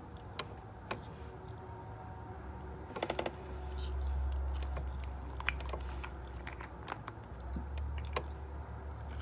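Long nails clicking and tapping as fingers pick meat from a piece of food, with a quick cluster of clicks about three seconds in. A low rumble runs under the middle of it.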